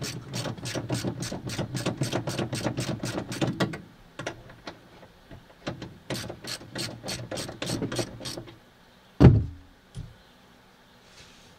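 Ratchet wrench clicking rapidly, about five clicks a second, in two runs as it backs the upper strut-mount nut off a Honda Civic's rear strut. A loud thump follows about nine seconds in, and a smaller one a second later.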